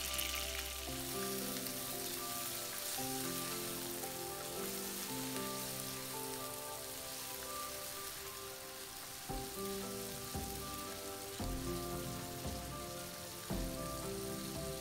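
Chopped meat and garlic sizzling in hot oil in a frying pan, with a few dull knocks in the second half as it is stirred with a wooden spatula. Soft background music with sustained notes plays over it.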